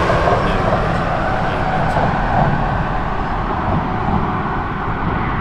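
Steady rumble of highway traffic on a bridge, a semi truck among it, easing off slightly toward the end.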